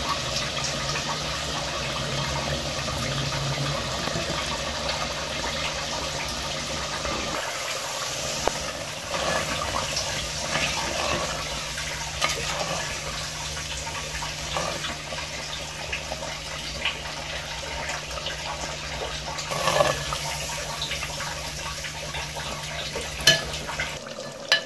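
Chicken curry simmering and bubbling in a clay handi, with a spatula scraping through it as it is stirred, over a steady low hum. A few sharp clinks near the end.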